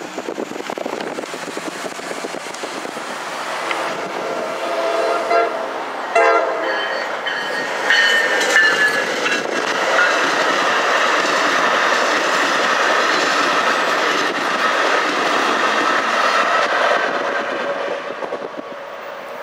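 NJ Transit passenger train sounding its horn about four to six seconds in, then passing at speed with steady wheel-on-rail noise. The noise is loudest through the middle and dies away near the end as the train recedes.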